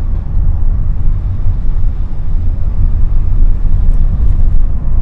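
Car on the move: a steady, heavy low rumble of road and engine noise.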